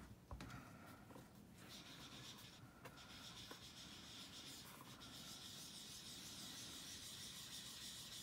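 Faint, steady rubbing of a hand over a piece of cardstock, with a few light ticks in the first seconds.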